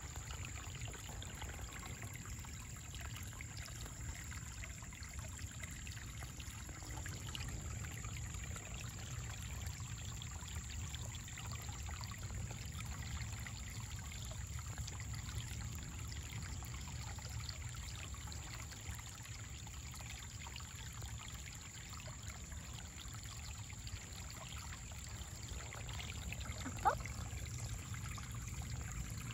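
Shallow rocky creek trickling over stones: a steady wash of running water.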